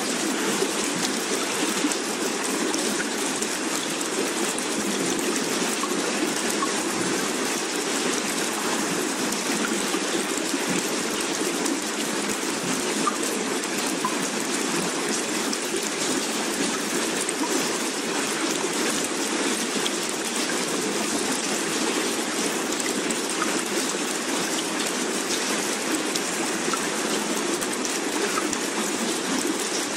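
Steady, even hiss of rain-like falling water, with no swells or breaks.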